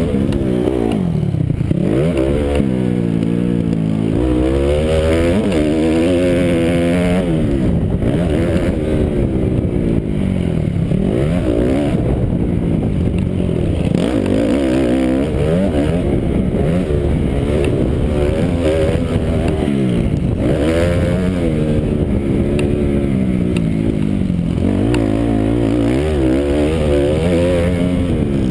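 Motocross bike engine heard up close from the rider's helmet during a race, revving hard and falling off again every second or two as the throttle is worked.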